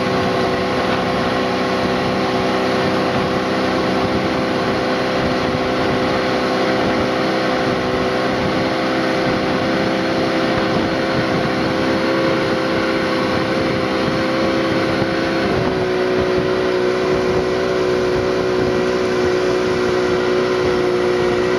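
Motorboat engine running steadily at cruising speed over a constant rush of wind and water; about two-thirds of the way through its pitch shifts slightly as the throttle changes.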